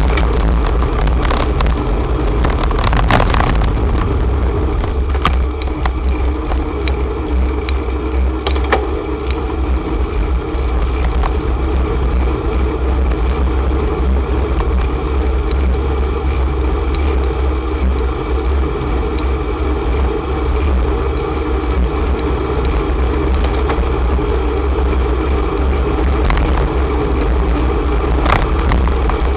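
Ride noise from a bicycle in city traffic: a steady low rumble of wind on the bike-mounted microphone over the hum of nearby car engines and tyres, with a few sharp clicks or rattles from the bike.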